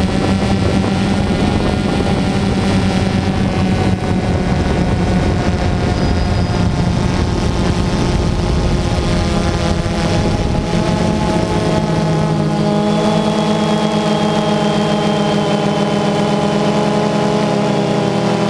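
DJI Phantom 2 quadcopter's motors and propellers buzzing loudly close to the on-board camera, a steady multi-toned drone with wind rush on the microphone. About two-thirds of the way through, the tones shift in pitch as the drone speeds up and banks.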